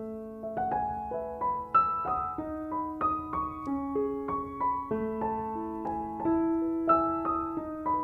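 Background music: solo piano playing a slow, flowing melody over broken chords, two or three notes a second, each one ringing on as it fades.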